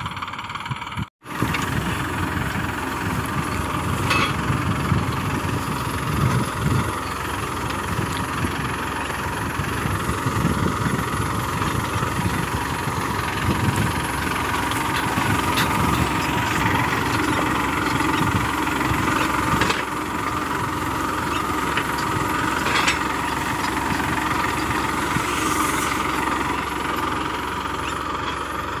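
Tractor diesel engine running steadily under load as it pulls a groundnut digger through a peanut field, with a dense low chugging. The sound cuts out for a split second about a second in.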